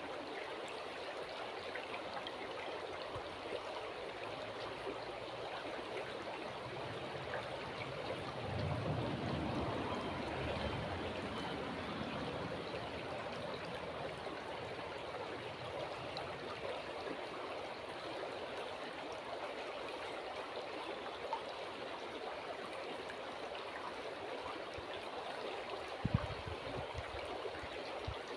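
River water flowing steadily with a gentle rushing and trickling, swelling briefly about nine seconds in. A short low thump sounds near the end.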